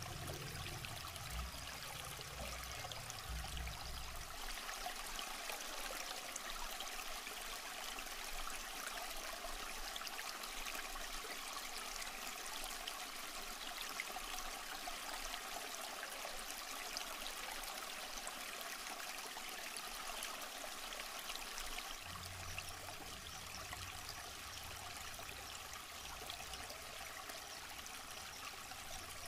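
River water flowing over rocks, a steady rushing. A low rumble sits under it for the first few seconds and again over the last several seconds.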